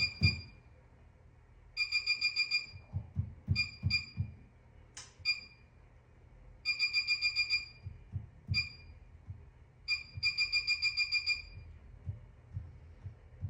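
Electronic beeping from a treatment unit's control panel: runs of quick high beeps, about eight a second, and single beeps, as the unit is set up. Soft low thumps come with the beeps.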